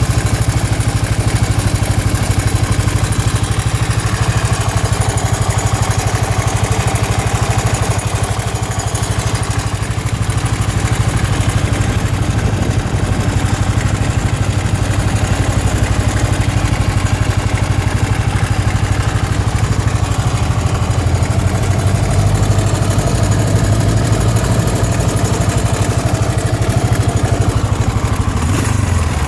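Suzuki DR 800 (SR43) motorcycle's big single-cylinder engine idling steadily, with an even low thumping that barely changes in speed.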